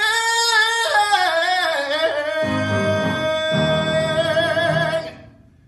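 A man belting the long final note of a musical-theatre song. The note wavers, dips about a second in, then holds steady until it stops about five seconds in. Low accompaniment chords come in twice beneath it near the middle.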